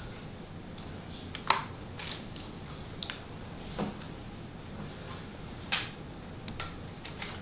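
Scattered sharp clicks and light knocks, about seven in all, spaced a second or so apart over a low steady hum.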